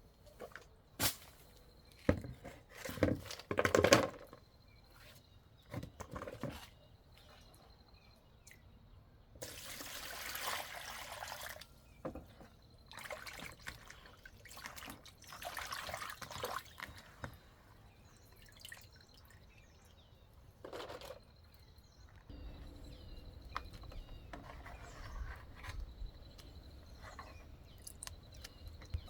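Water being poured and splashed in short bursts of a second or two, with scattered knocks and clatter in between.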